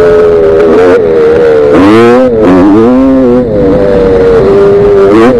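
Gas Gas 250 dirt bike engine running under way, its pitch climbing sharply about two seconds in, dropping back, then holding steady and rising again near the end.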